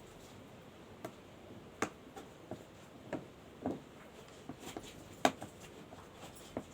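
Small clicks and taps at irregular intervals, from a mobile phone's parts and small tools being handled during a repair; the sharpest click comes about five seconds in.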